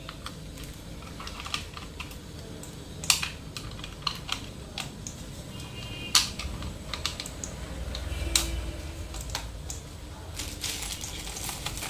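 Irregular plastic clicks and taps from a wireless mouse and keyboard being handled, with three sharper, louder clicks spread through.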